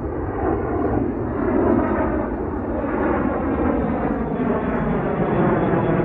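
Jet aircraft flying overhead: a steady rushing engine rumble that swells slightly about a second and a half in.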